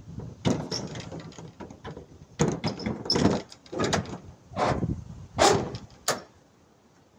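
A run of irregular knocks, bangs and clatters from the open rear of a semi-trailer as a person moves about on its load floor and climbs down. They stop a little after six seconds in.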